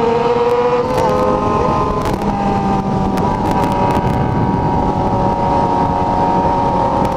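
Yamaha XJ6 N motorcycle's inline-four engine running under way, its note climbing, dipping slightly between one and two seconds in, then holding steady, with wind noise on the microphone.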